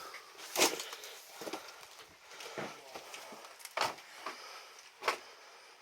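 Scattered crunching and knocking of wood debris: about six short, sharp sounds at uneven intervals.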